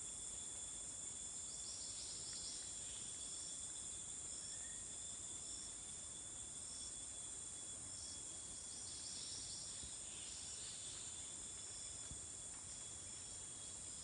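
Chorus of rainforest insects: a steady high-pitched drone with a second, lower steady tone beneath it, and short chirps repeating about once a second, with a few longer buzzy bursts.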